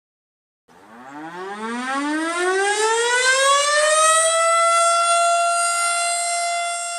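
Volunteer fire siren sounding a call-out: starting from silence about a second in, it winds up from a low growl to a high steady wail over about three seconds, then holds its full pitch.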